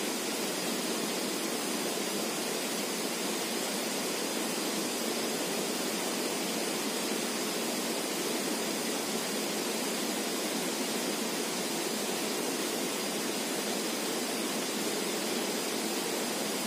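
Steady rushing of a flowing river, an even hiss of water with no breaks, with a faint high steady whine underneath.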